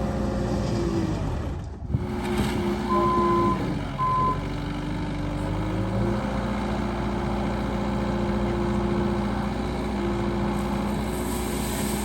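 JCB 1CXT backhoe loader's diesel engine running steadily, with two short electronic beeps about three and four seconds in.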